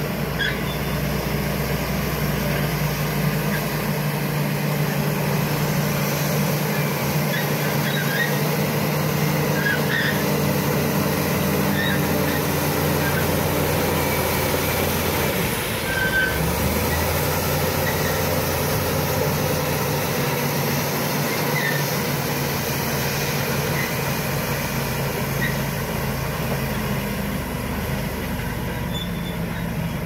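Shantui SD16E crawler bulldozer's diesel engine running steadily under load as it pushes soil, its note changing about halfway through.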